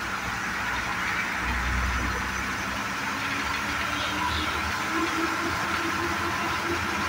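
MSRTC state transport bus heard from inside the cabin: its diesel engine running steadily under the noise of tyres on wet tarmac, with a deeper rumble swelling about a second and a half in.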